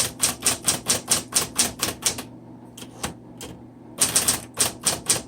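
Typing on a Smith Corona Coronet Electric 10 electric typewriter: quick runs of type bars striking the platen, about five strikes a second, broken by a pause of about two seconds with only a few scattered strikes before typing picks up again.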